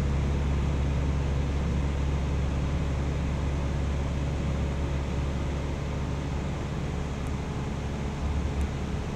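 Steady drone of a single-engine light aircraft's engine and propeller in flight, heard from inside the cabin.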